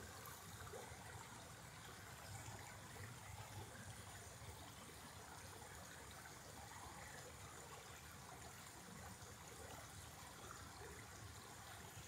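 Shallow creek running over rocks, a faint, steady trickle.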